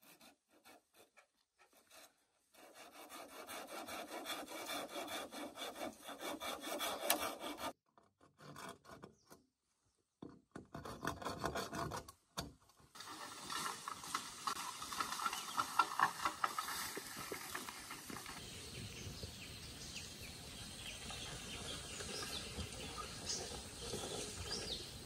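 A hand tool scraping and rasping on wood in runs of quick strokes, broken by short pauses; it starts about three seconds in.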